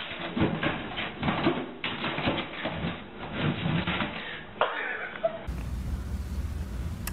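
Irregular knocks, taps and clatter of a plastic pet-door flap and a cardboard box as a dog shoves through the flap carrying the box, with one louder knock near the end of it. Then, after about five and a half seconds, a low steady rumble.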